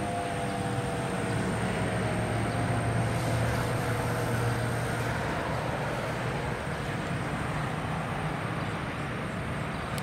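Federal Signal 2001-130 electromechanical siren winding down at the end of its test, its tone falling steadily in pitch and fading out within the first few seconds. Steady road traffic runs under it, with a vehicle passing by louder in the middle.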